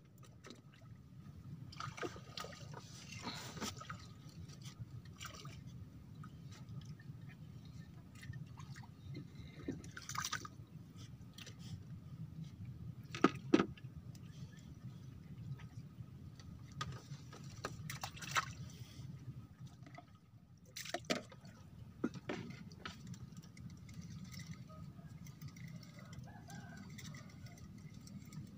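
Soft water lapping against a bamboo raft, with scattered clicks and knocks of fishing rods and a spinning reel being handled on the bamboo deck. The sharpest are two knocks close together about thirteen seconds in.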